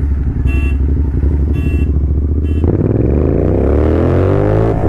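Royal Enfield Continental GT650's parallel-twin engine running steadily, then opened up hard for a launch about two and a half seconds in: the engine note climbs steadily and dips briefly at a gear change near the end. Three short high beeps sound before the launch.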